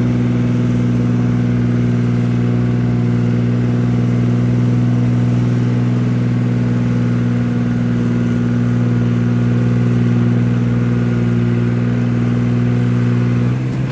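Farm tractor engine at full throttle, dragging a weight-transfer sled in a pull: a loud, steady drone held at one pitch. The note falls away near the end.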